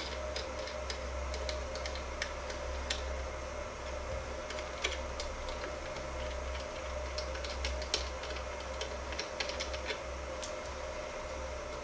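Scattered light clicks and taps from hands working the mold fan assembly's mounting on a desktop injection molding machine. Under them runs a steady low hum with a faint steady whine from the machine's powered stepper motors.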